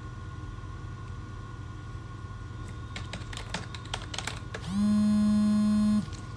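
Computer keyboard typing, a quick run of key clicks about three seconds in, then a mobile phone on vibrate buzzing steadily for just over a second, rising briefly in pitch as it starts and cutting off suddenly: an incoming call.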